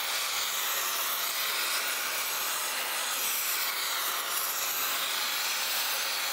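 Gas torch flame hissing steadily as it heats a band saw wheel hub, to expand the hub so the tapered shaft held under hydraulic press pressure can break free.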